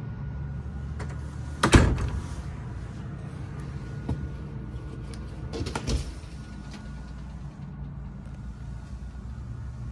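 A motorhome's frosted sliding shower door being pulled open along its track with a rattle about six seconds in, after a sharp clack about two seconds in. A steady low hum runs underneath.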